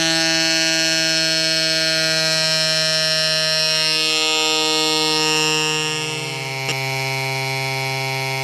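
Rock Bros mini electric tyre inflator running, a steady motor whine, as it pumps up a tubeless tyre to seat the bead. Its pitch drops a step about six seconds in, with a short click just after.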